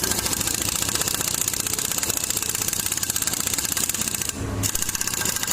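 Impact wrench hammering in a rapid, even rattle, stopping for a moment about four seconds in and starting again.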